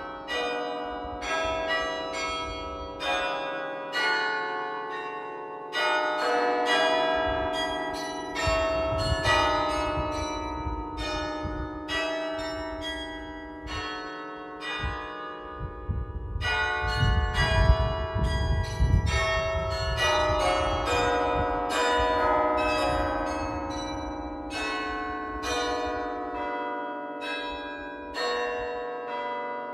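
Carillon played from its baton keyboard: bronze bells struck in quick runs and chords, several notes a second, each ringing on and overlapping the next. A low rumble sits under the bells through the middle stretch.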